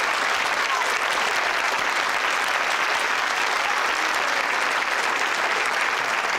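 Studio audience applauding steadily, a dense, even clapping throughout.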